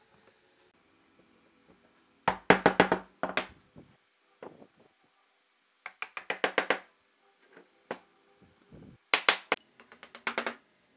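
Wood being struck in three quick runs of knocks, each a handful of rapid strikes, with single fainter taps between.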